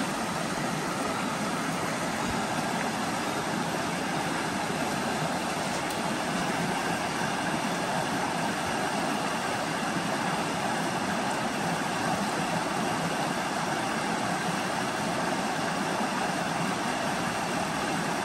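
Steady rush of creek water running at an even level.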